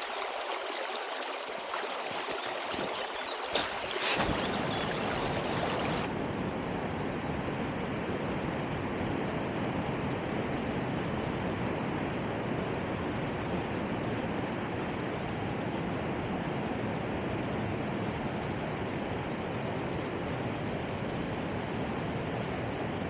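Steady rush of flowing mountain water, which grows fuller and deeper about four seconds in.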